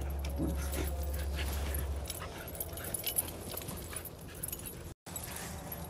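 Two dogs play-fighting, with short whimpers and yips over the scuffling and rustling of their movement. A steady low hum underlies the first two seconds.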